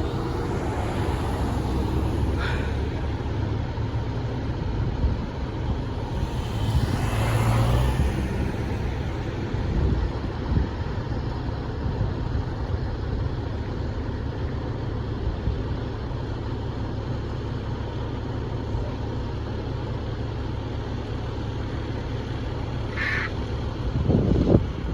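Fire truck engine idling steadily with a deep rumble, with a hiss about seven seconds in and two short squawks, one early and one near the end.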